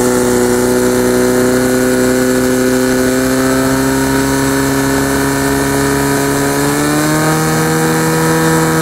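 Portable fire pump's engine running at high revs, a steady engine note that climbs slightly about seven seconds in, as it pumps water out through the hoses to the nozzles.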